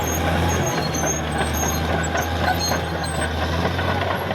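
Caterpillar D6R XL crawler bulldozer's diesel engine running steadily under work, a deep drone with light clanks and rattles from the machine.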